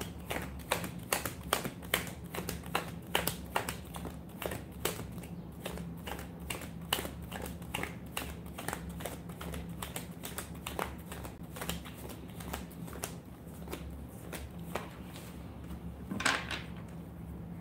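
Rapid, irregular light clicks like keys being typed, dense at first and then thinning out, over a steady low hum. There is a brief rustle near the end.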